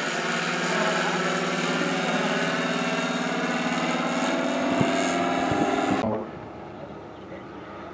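Engine of a giant-scale radio-controlled de Havilland Tiger Moth model running in flight overhead, its pitch sinking slowly. About six seconds in the sound cuts off abruptly, leaving a much quieter background.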